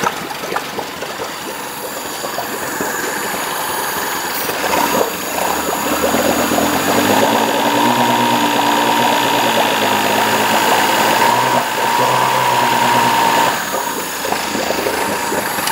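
Honda BF40D three-cylinder four-stroke outboard running in a test tank. It idles, is revved up about five seconds in and held at a steady higher speed, then drops back toward idle near the end.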